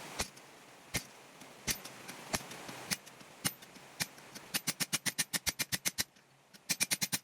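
Blacksmith's hand hammer striking a 1/2 inch square steel bar on the anvil, drawing out and rounding the handle. First come spaced single blows, then two quick runs of light, rapid strikes about seven to the second, with a short pause between them.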